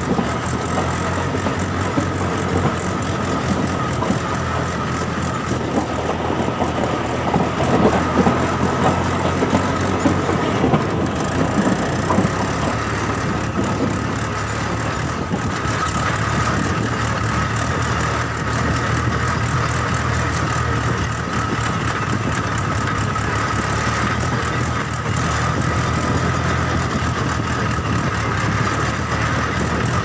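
A toy vehicle's small electric motor and gears whirring steadily, with gravel clattering as the load is tipped out, loudest about eight to twelve seconds in.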